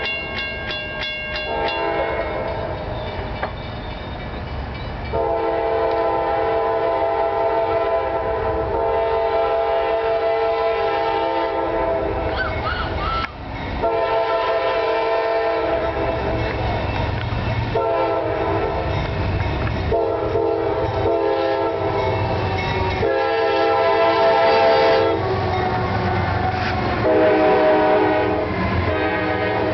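A freight locomotive's multi-chime air horn sounds a series of long blasts for a grade crossing, with a crossing bell dinging at the very start. From about halfway through, the low rumble of the locomotives and coal hopper cars rolling past grows underneath the horn.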